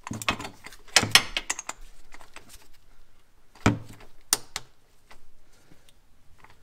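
Metal clicks and knocks of a 7/8-inch socket on an extension being worked against the spin-on oil filter. There is a cluster of knocks in the first second or so, then a louder knock with a couple of lighter clicks a little past the middle.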